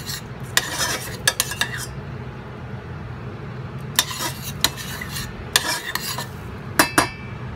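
Metal spoon stirring a thick sauce in a stainless steel pot, clinking and scraping against the pot's sides in several short clusters, over a low steady hum.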